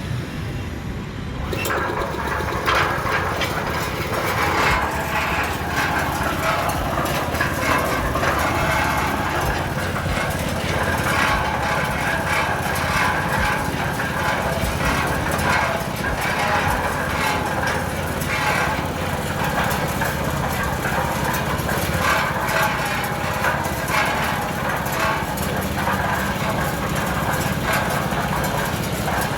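Mini concrete mixer's 7 HP petrol engine running steadily at an even level.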